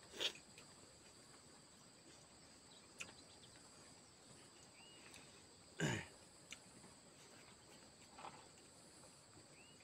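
Steady high chirring of insects, with two short louder close-up sounds, one right at the start and one about six seconds in.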